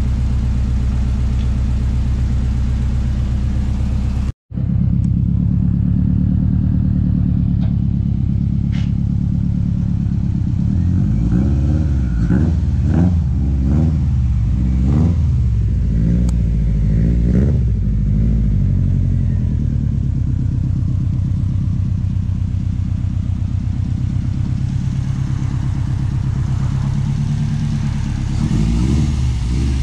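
Turbocharged Subaru Impreza flat-four idling steadily, with a run of about five quick throttle blips in the middle, each rising and falling in pitch, before it settles back to idle. A brief dropout about four seconds in, and one smaller blip near the end.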